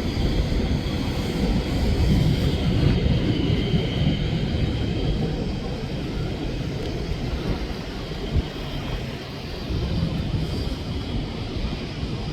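Jet airliner engines rumbling as the aircraft passes, loudest about two to three seconds in and then slowly fading.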